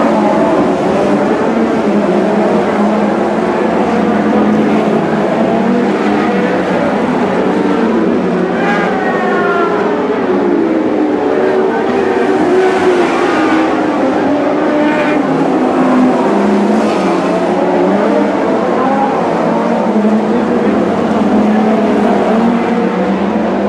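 A field of Lightning Sprint cars racing on a dirt speedway oval, several engines running together in a steady, loud drone. Engine notes rise and fall as cars accelerate out of the turns and pass.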